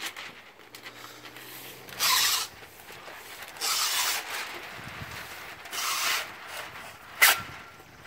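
Tape and masking paper being pulled off a 3M Hand Masker: three short pulls about half a second each, spaced roughly two seconds apart, then a sharp click near the end.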